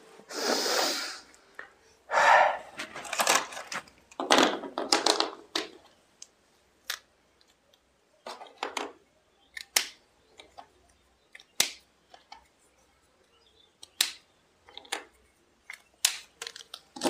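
Handling noise: three rustling bursts in the first six seconds, then scattered clicks and short taps.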